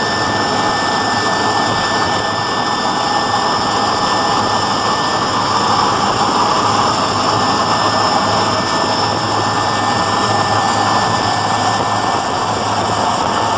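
Helicopter cabin noise with the side door open: turbine engines and rotor running at a steady loud level, with a thin high whine held over a dense rush of noise.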